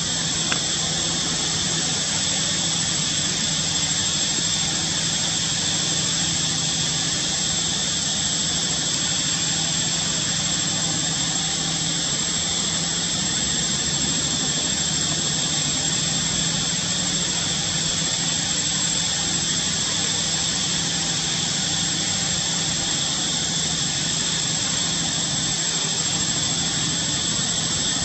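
A steady, unchanging drone of noise with a constant high whine through it, without breaks or distinct events.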